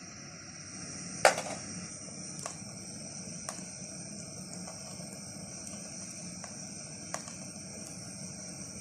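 Metal spoon clinking against an aluminium cooking pot: one sharp, ringing clink about a second in, then a few lighter taps of the spoon. A steady high-pitched hiss runs underneath.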